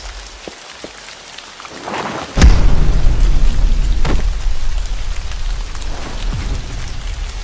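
Steady rain falling, then about two and a half seconds in a loud clap of thunder breaks in and rolls on as a deep rumble under the rain.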